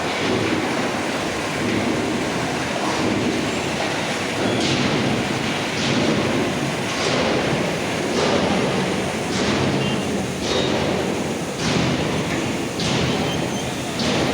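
Railway wagon rolling on track: a steady rumble with a regular clack about every second and a bit.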